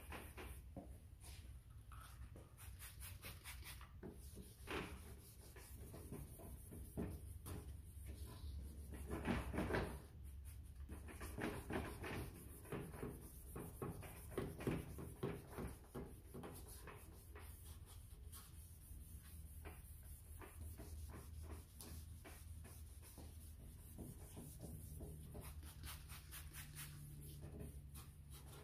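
A sanding disc on a foam pad rubbed by hand over a plastic headlight lens, wet-sanding off the oxidation in repeated up-and-down and side-to-side strokes.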